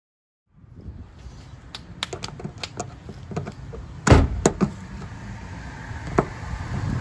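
Irregular clicks and knocks of a hand tool and its metal bit against the plastic trim panel and screw heads, with a few louder knocks about four seconds in, over a low handling rumble.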